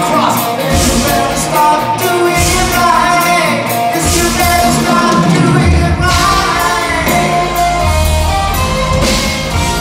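Progressive rock band playing live in a large theatre, heard from the audience: a lead vocal sings over electric guitars, keyboards, bass and drums.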